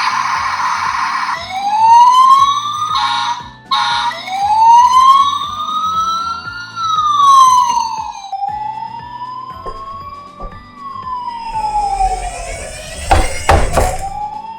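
Emergency vehicle siren wailing in long rising and falling sweeps. About eight seconds in it changes to a slower, even up-and-down wail. A short noisy blast opens the sound, and a few sharp knocks come near the end.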